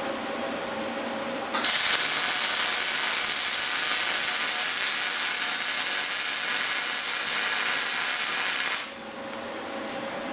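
Wire-feed welder's arc crackling steadily as one bead is run down a steel plate, starting suddenly about a second and a half in and cutting off about nine seconds in. A quieter steady hum is there before and after the weld.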